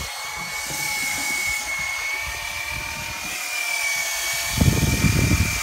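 Electric fishing reel's motor whining steadily as it winds line in from deep water, over a low rumble that grows louder near the end.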